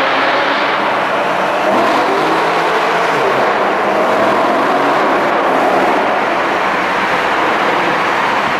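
BMW E92 M3 V8 with an aftermarket tuned exhaust accelerating hard in a tunnel. The engine note climbs and drops back at gear changes.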